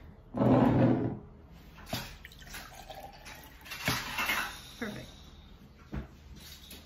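Hot sweet vinegar brine poured into a glass jar of apricots: a short splash of liquid about half a second in. It is followed by a few light knocks, typical of glass jars being set down on a wooden table.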